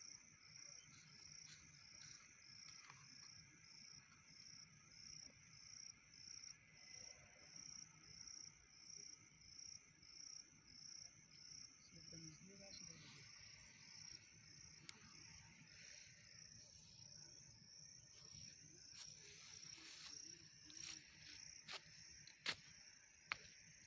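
Faint insect chirping in an even rhythm, a little more than one high-pitched pulse a second, with a few sharp clicks near the end.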